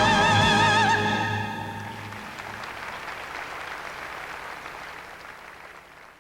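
The final held chord of a choir and orchestra, with a singer's wide vibrato on top, ends about a second in and gives way to audience applause, which fades away near the end.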